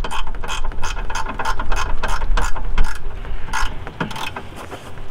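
Ratchet wrench tightening a headlight mounting bolt: a rapid run of sharp clicks from the pawl, thinning out near the end.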